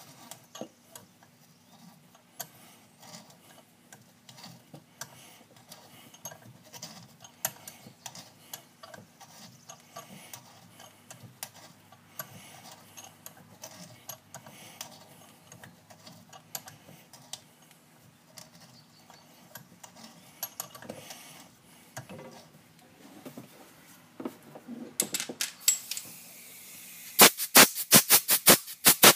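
Hand tools working steel in a screw hole of a Stihl MS 260 chainsaw's aluminium crankcase during a Time-Sert thread repair. There is a scatter of small clicks and scrapes as the tool is turned, then a quick run of about eight loud, sharp clicks near the end.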